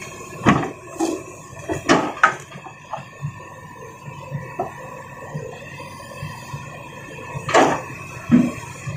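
Stones knocking and clattering as they are loaded into a dump truck bed: a few sharp knocks in the first couple of seconds and two more near the end, over a faint steady hum.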